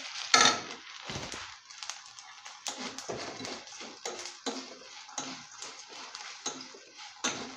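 Spatula stirring and scraping roasting cashews, nuts and urad dal around a kadai, a string of short irregular scrapes and clicks against the pan.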